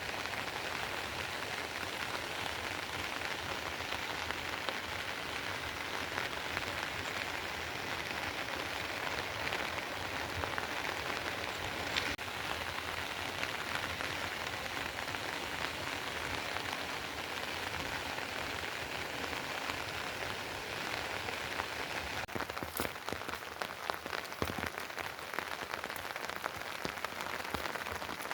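Steady rain falling. From about two-thirds of the way in, separate drop hits stand out more sharply, along with one sharper tick about halfway through.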